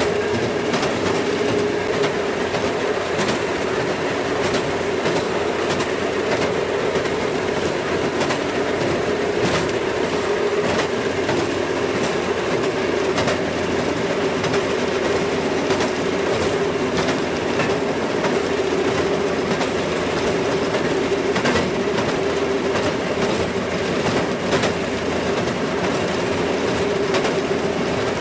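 Railroad motorcar (speeder) running along the track: a steady hum with the wheels clicking irregularly over rail joints.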